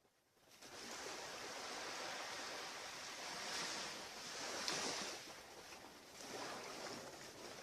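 Ocean surf washing on a beach: a steady hiss that starts about half a second in and swells a few times as waves break.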